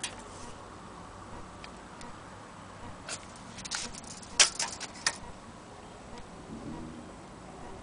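Irregular light clicks and taps from handling an empty wooden Vienna wall clock case, bunched together a little past the middle, with one sharp click the loudest.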